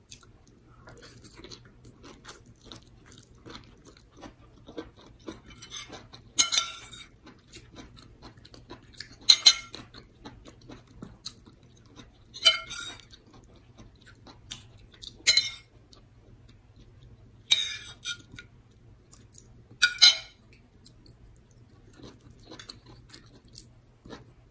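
Close-up mouth sounds of a person eating rice and vegetables by hand: soft steady chewing, broken by six loud, brief wet mouth noises spaced two to three seconds apart.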